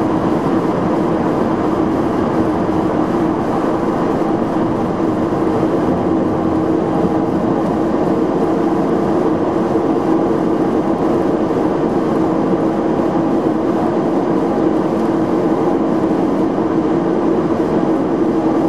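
Twin turboprop engines of a King Air 200 heard from inside the cockpit, running at low power during the rollout and taxi after landing: a steady drone with one strong steady hum.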